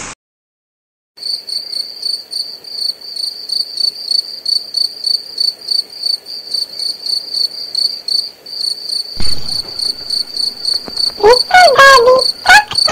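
Cricket chirping laid on as an intro sound effect: a steady high chirp pulsing a few times a second, starting about a second in. Near the end a few loud, wavering tones slide up and down over it.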